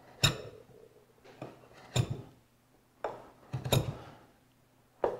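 Marking knife scoring wood against the steel blade of a combination square: four sharp metallic clicks, roughly one every second and a half, as the knife and square are set, with short scraping strokes of the knife cutting into the wood between them.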